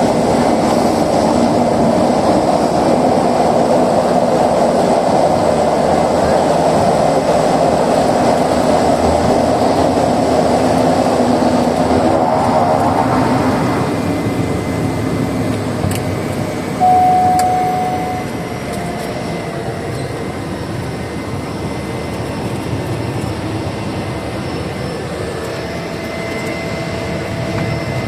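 Steady engine and propeller noise of a small propeller plane heard inside the cabin in flight. Partway through it drops to a lower, steady level as the power changes, with a brief tone a few seconds later.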